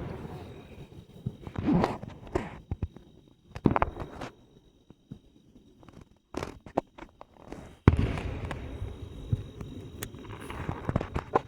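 Aerial fireworks bursting: several sharp booms a few seconds apart, each trailing off in a rolling rumble, with scattered crackles between them.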